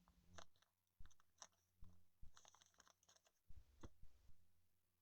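Faint scattered clicks and crinkles of trading cards being handled and slid into plastic card sleeves.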